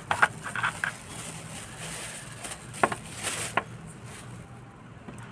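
Plastic wrapping crinkling and rustling as it is handled and pulled off a new keyboard, with crackly bursts near the start and again about three seconds in.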